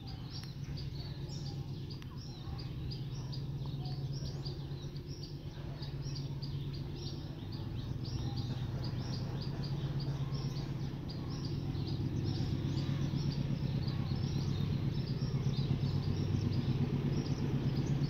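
GE CC206 diesel-electric locomotive's engine running at low power as the freight train approaches slowly, a steady low tone growing gradually louder. Birds chirp throughout.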